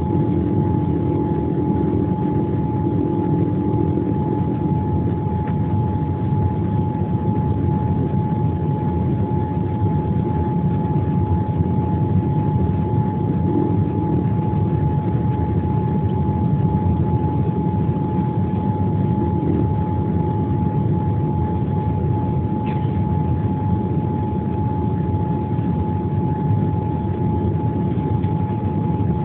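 Jet airliner cabin noise: a steady low rumble of engines and airflow with a constant whine running through it.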